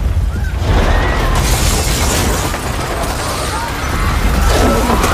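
Film soundtrack of an earthquake and collapsing building: a heavy, continuous low rumble, joined about a second in by a dense crashing rush of falling debris, with cries from the fleeing crowd.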